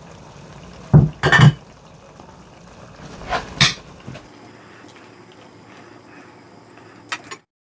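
Kitchen utensils knocking against a pot and bowl, with pasta water being poured into the ricotta and pecorino cream. There are two sharp knocks about a second in, two more around three and a half seconds in, and a few light clicks near the end.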